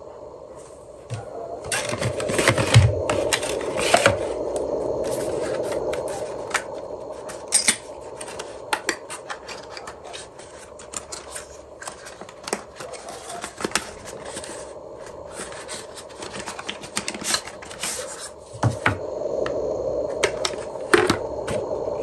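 Paper inserts and a cardboard box being handled: card and paper scraping, rubbing and rustling, with many short sharp clicks and taps.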